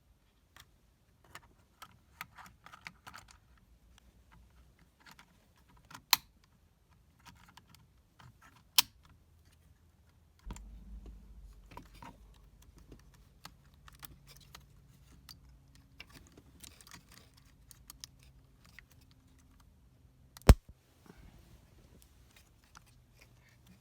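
Scattered light clicks and taps of plastic steering-column trim and clock-spring clips being handled and snapped, with three sharp snaps standing out. A low steady hum comes in about halfway through.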